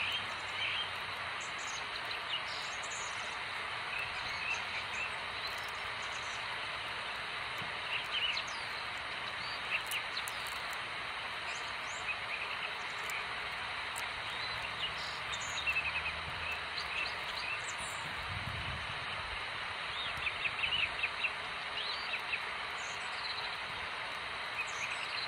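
Outdoor park ambience: a steady hiss of background noise with scattered short, high bird-like chirps, and a low rumble that swells and fades about two-thirds of the way through.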